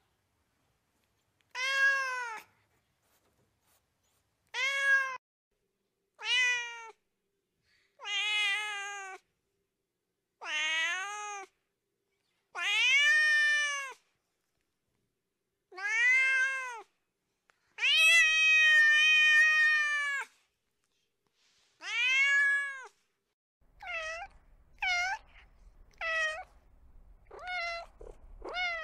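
A cat meowing over and over: separate meows that rise and fall in pitch, with silent gaps between them, and one long drawn-out meow about two thirds of the way in. Near the end, quicker, shorter meows come one after another over a faint low hum.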